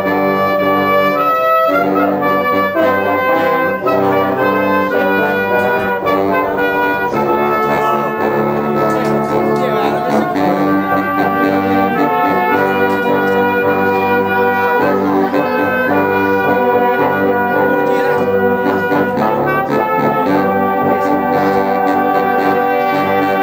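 Wind band of tuba, trumpets and saxophones playing a tune together, steady held notes moving melodically.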